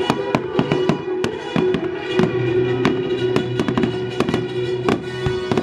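Fireworks going off in rapid, irregular bangs and crackles over orchestral music playing through loudspeakers, the music synchronised to the show.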